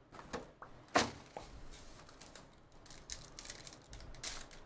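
Handling noise from a cardboard hobby box, with a sharp knock about a second in. Then a foil trading-card pack wrapper crinkles as it is torn open by hand.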